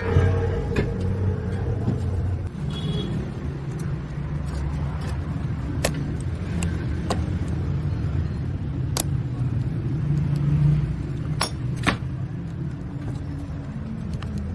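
Steady low engine rumble from a vehicle, with sharp clicks now and then.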